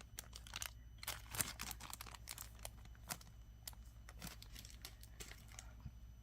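Faint, irregular small clicks and crinkles: glass crystal beads and their plastic packaging being handled. The clicks come thickly for the first few seconds, then thin out.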